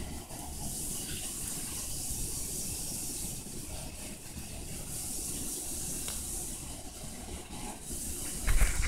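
Steady hiss over a low rumble, with a few faint ticks. Near the end comes a loud bump and rumble as the handheld camera is handled and moved.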